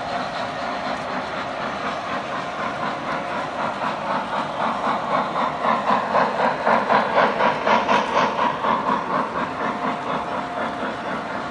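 Lionel O gauge Erie Berkshire model steam locomotive and its coal hopper train passing close by, with a quick, even, rhythmic beat of chuffing and rail clatter that builds, is loudest as the engine's tender goes by, then eases as the hoppers follow.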